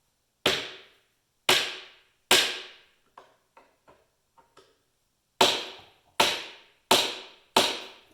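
Hammer blows on a hand impact driver to break loose stuck screws: three sharp strikes in the first couple of seconds, then four more near the end, each ringing briefly, with light taps between.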